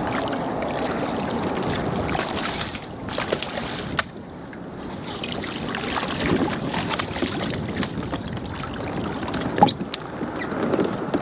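Water splashing and sloshing around a fishing kayak as a hooked bass thrashes at the surface beside it. Two sharp knocks, the louder one near the end.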